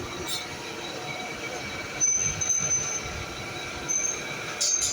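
Metal-cutting machine tool running, a milling cutter working steel, with high-pitched squealing tones that come and go. It gets louder about two seconds in and again near the end.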